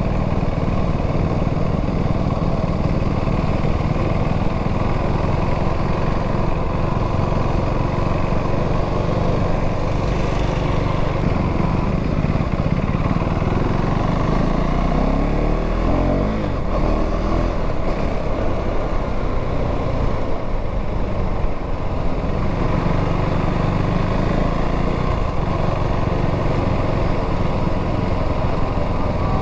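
KTM Duke 390 single-cylinder engine through its stock exhaust, heard on the move during a ride. The engine note runs steadily, then dips and climbs again about halfway through as the revs change.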